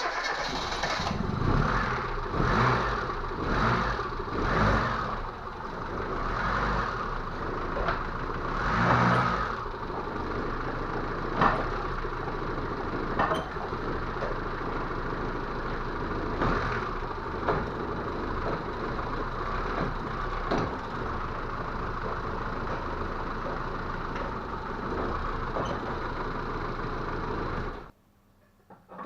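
ZAZ Tavria's four-cylinder petrol engine running, blipped with a quick series of revs over the first few seconds and again near nine seconds, then running steadily with a few sharp knocks. The car is in for a knock that the mechanic puts down to missing engine mounts.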